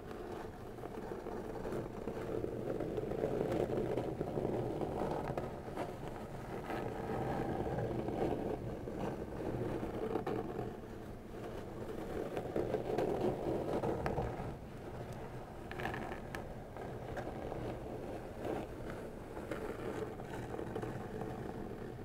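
Long fingernails slowly scratching a brown corrugated cardboard packing box: a deep, rasping scrape that swells and fades in slow strokes lasting a few seconds each.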